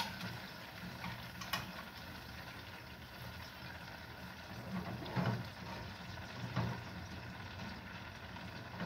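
Fried sausages lifted out of a frying pan of oil on a gas stove: a few light knocks of a metal spoon against the pan and bowl over a faint, steady low hum.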